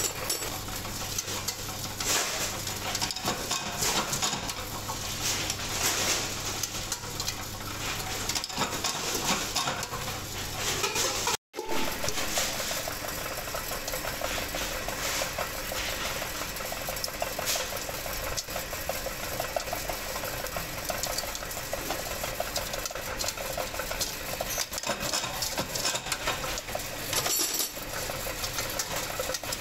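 Metal clinking and clattering as bent steel handles, rivets and a steel bowl are handled, over workshop machinery. A low steady hum runs at first; after a brief break about a third of the way in, a machine's fast, even rhythmic chatter takes over.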